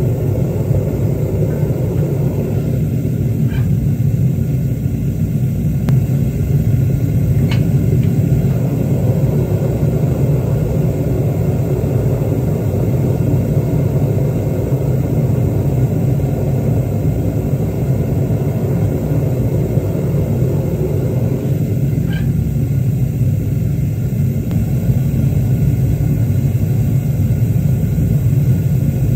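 Gas burner of a home-made foundry furnace firing at full blast, a steady low roar, while a crucible of copper melts inside. A few faint ticks are heard over it.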